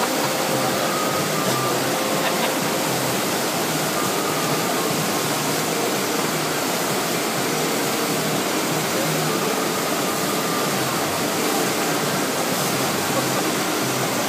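Steady rushing of water pumped in a thin sheet over an artificial standing-wave surf machine, loud and even throughout.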